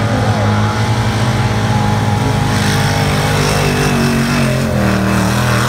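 Ford big-block V8 in a street-gas pulling pickup running steadily under heavy load as it drags a weight-transfer sled down the track.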